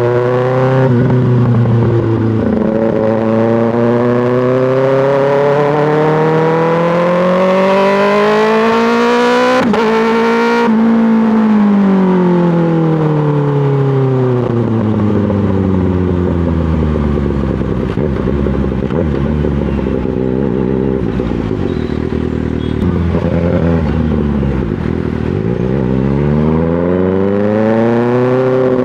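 2024 Kawasaki ZX-6R's inline-four running through an M4 GP slip-on exhaust under way. It rises in pitch under acceleration for the first ten seconds or so, breaks off briefly, then falls in pitch over a long stretch as the bike slows, and rises again near the end.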